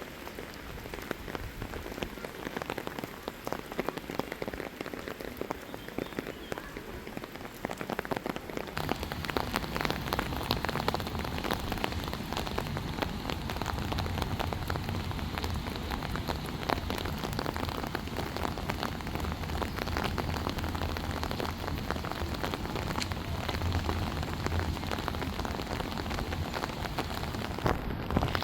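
Steady rain falling, with many small drop taps. About nine seconds in it grows louder and a low rumble joins it.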